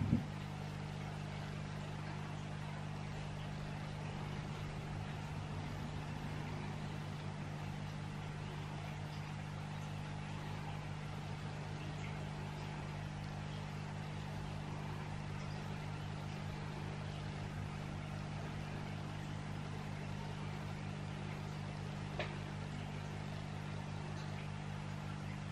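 A steady low hum throughout, with a short click at the very start and a faint tick near the end.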